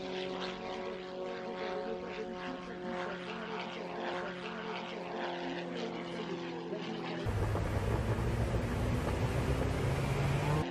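Single-engine aerobatic propeller plane in flight, its engine and propeller giving a steady droning tone. About seven seconds in, the sound switches abruptly to louder, deeper engine noise heard from inside the cockpit.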